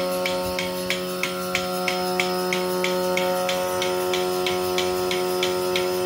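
Single-can milking machine running: the oil-lubricated monoblock vacuum pump hums steadily, while the pulsator on the milk can lid clicks about three times a second.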